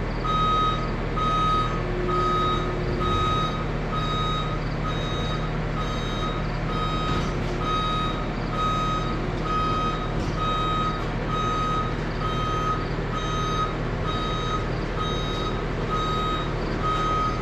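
Skid loader's backup alarm beeping steadily, a little over once a second, over the machine's engine running.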